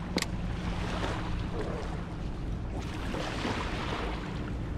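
Wind buffeting the microphone over choppy water lapping at the shore, with a steady low rumble. A single sharp click comes about a quarter-second in.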